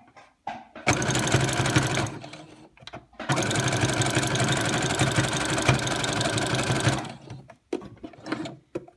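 Electric sewing machine stitching a zigzag seam in two runs: a short burst of about a second, then a steady run of nearly four seconds that stops suddenly.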